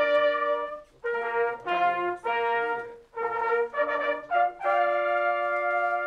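Brass hunting horn (Polish sygnałówka) playing a fanfare for a prize presentation: a run of short, separate notes, then one long held note near the end.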